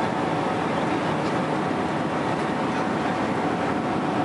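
Steady cabin noise of a Boeing 767-300 airliner in flight: the even, unbroken rush of engines and airflow heard from an economy seat, with a few faint ticks over it.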